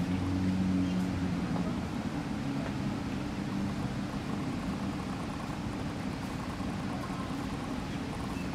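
Steady low mechanical hum over a background rush, a little louder about a second in.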